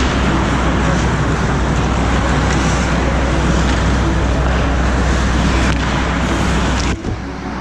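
Steady rushing noise from a camera carried by a skater on the ice: wind buffeting the microphone with a low rumble, mixed with skate blades scraping the ice. It dips briefly near the end.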